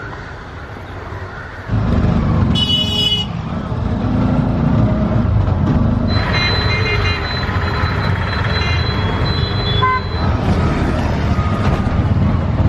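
Auto-rickshaw running with engine and road noise, heard from inside the cab, starting suddenly a little under two seconds in. A short horn toot comes a second later, and a steady high tone with short notes over it sounds for about four seconds in the middle.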